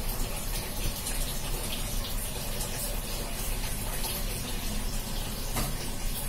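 Steady rushing background noise, with a faint knock about five and a half seconds in.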